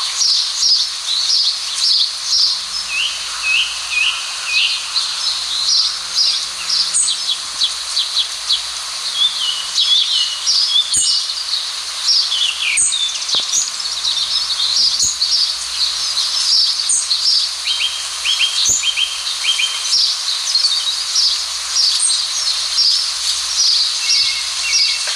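A dense chorus of small birds chirping and twittering continuously, many quick high notes overlapping, with a few sharp clicks here and there.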